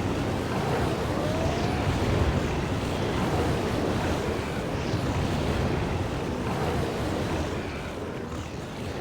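Stampede sound effect: a dense, steady rumble of many running animals, with a faint short rising cry about a second in, fading slowly near the end.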